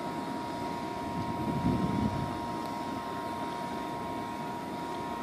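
Steady rushing wind noise with a low rumble from the storm, swelling slightly about two seconds in, over a faint steady hum.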